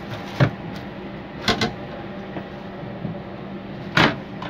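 Hands knocking and clattering against a Boeing 737-300 lavatory's waste-bin compartment and panels: one knock about half a second in, a quick double knock at about a second and a half, and the loudest knock near the end, over a steady hum.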